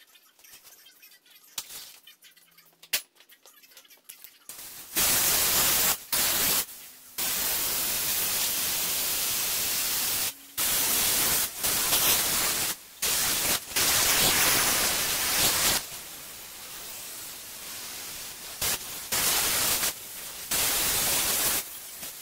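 A few faint clicks, then a loud, harsh static hiss that cuts in about five seconds in and keeps switching on and off abruptly until near the end.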